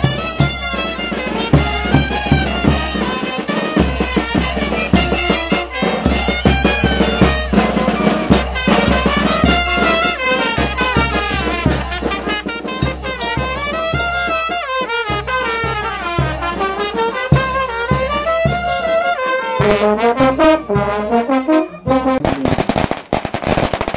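Live brass band of trumpets and trombones over a steady bass drum, playing a majeños dance tune with the horns running up and down in pitch. The music stops shortly before the end, followed by a few sharp cracks.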